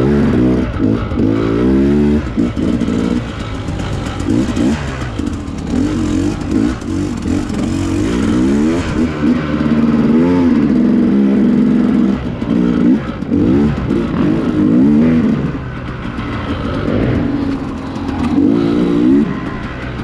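Dirt bike engine revving up and down over and over, its pitch rising and falling every second or so, under a steady rushing noise.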